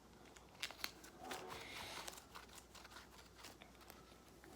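Faint handling sounds on a phone: a few light clicks, then soft crinkling of tape being handled and pulled on the screen.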